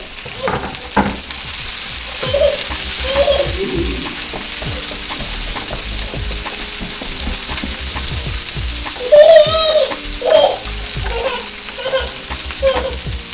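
Sliced bell peppers, carrots and onions frying in hot oil, sizzling steadily, while a spoon stirs them and scrapes and knocks against the pan.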